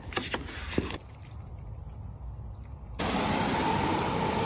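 Protective plastic film crackling as it is peeled off a twinwall polycarbonate sheet, a few sharp crackles in the first second. From about three seconds in, a garden hose spray nozzle sprays water onto the sheet with a steady hiss.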